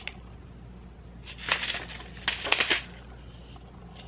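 Small plastic bag of diamond-painting rhinestones rustling as it is handled, in two short bursts.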